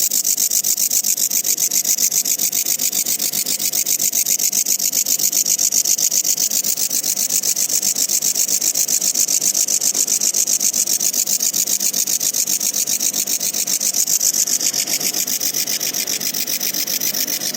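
Locust (a singing insect) calling: a loud, high-pitched buzz that pulses rapidly and holds steady throughout.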